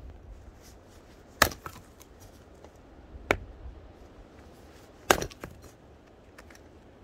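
Wood being chopped: three sharp chopping strikes about two seconds apart, with lighter knocks between them.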